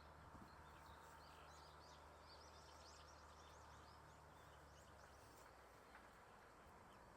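Near silence outdoors with a faint steady hiss, and faint high bird chirps twittering through the first few seconds.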